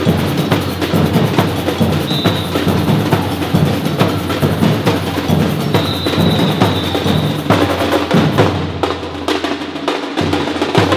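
Percussion ensemble playing drums with sharp wood-block-like strokes in a fast, steady rhythm.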